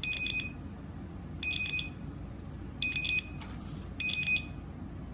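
SF800 access-control reader's buzzer beeping in card-enrolment mode: four short clusters of quick high pips, about one cluster every second and a half.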